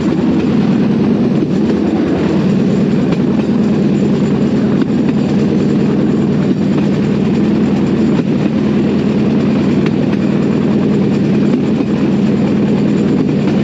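Bamboo train (norry) running along the rails: a loud, steady rumble of its small petrol engine and steel wheels on the track, with occasional faint clicks.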